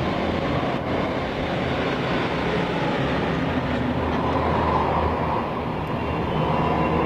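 Diesel street tram running along its track: a steady engine drone mixed with the rumble of wheels on rail.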